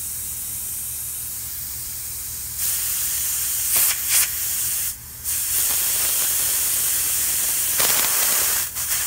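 Propane hissing out of the small vent valve on a transfer hose as the line is purged of gas. The hiss grows louder about two and a half seconds in, dips briefly near the middle, and near the end it is a spray of liquid propane mist, the sign that liquid has reached the line.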